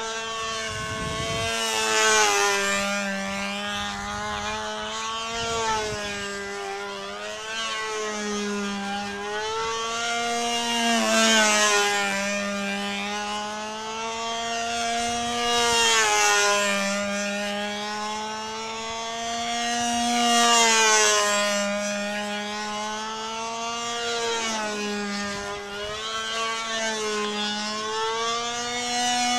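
Control-line model airplane's motor and propeller running at full power as it circles, its pitch and loudness swelling and fading about every four and a half seconds as it passes closest on each lap.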